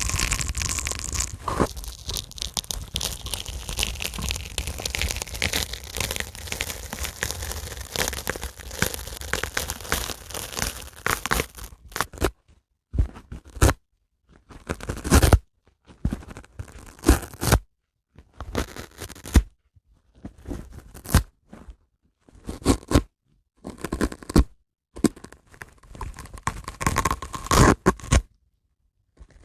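A dry sponge being ripped and crunched close to the microphone. For about the first twelve seconds there is continuous crackly tearing, then a series of short separate rips with brief pauses between them.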